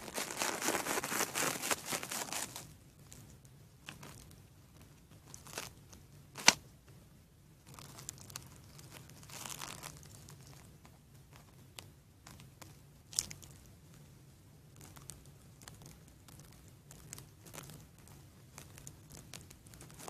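Handling noise from toys and props being moved about: a crinkling rustle for the first couple of seconds, a fainter rustle near ten seconds, and two sharp clicks, about six and a half and thirteen seconds in, the first the loudest.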